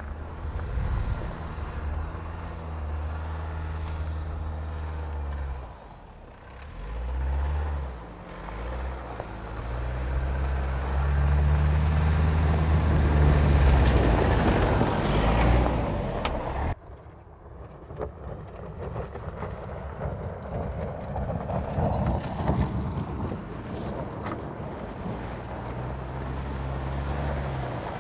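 Toyota Tacoma pickup's 2.4-litre turbocharged four-cylinder engine pulling on a dirt trail, its revs rising and falling with the climb, over the noise of tyres on loose dirt. It is loudest a little before the middle, cuts away sharply about two-thirds through, then runs on more evenly at a lower level.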